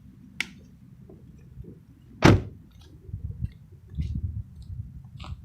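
A single loud thump about two seconds in, over a low rumble with scattered faint clicks and knocks.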